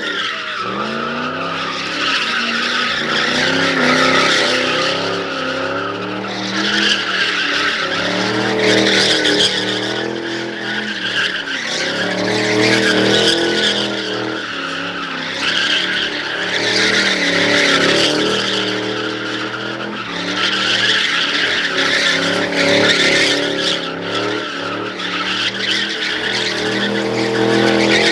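A car's tires screeching as it spins donuts, with its engine revving up and down every few seconds.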